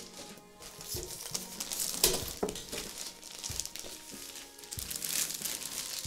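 Clear plastic wrapping crinkling as a cymbal is pulled out of it by hand, with a sharp louder crinkle about two seconds in.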